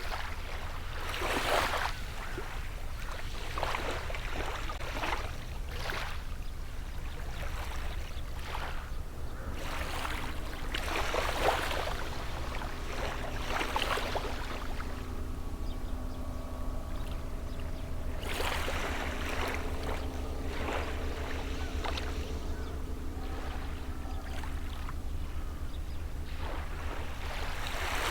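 Gentle sea waves washing onto the shore, each a soft rush of surf, over a steady low rumble. Partway through, the steady hum of a distant boat engine comes in and holds under the surf.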